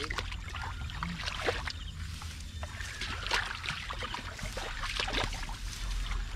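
Water splashing and sloshing in irregular bursts over a steady low rumble.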